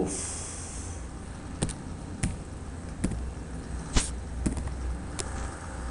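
Slow, scattered keystrokes on a computer keyboard: about six single key clicks, each well apart from the next, over a low steady hum.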